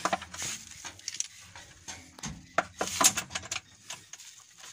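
Light metallic clicks, taps and rattles of a hand working on a Bajaj petrol three-wheeler's engine around the spark plug, a scatter of irregular knocks with the sharpest about three seconds in.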